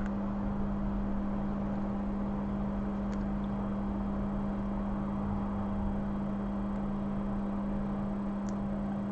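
Steady electrical hum with one strong constant low tone over an even, fan-like noise, from the repair bench's powered equipment.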